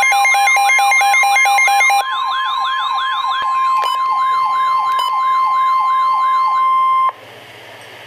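Weather radio sounding a warning alert: a steady high tone with a warbling siren repeating about three times a second and a fast two-pitch beeping over it. The beeping stops about two seconds in, the siren a few seconds later, and the tone cuts off about seven seconds in, leaving faint radio hiss.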